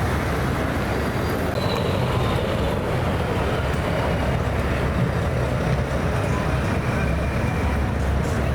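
Heavy truck engine running steadily, a deep low sound with no revving, typical of the V8 show trucks.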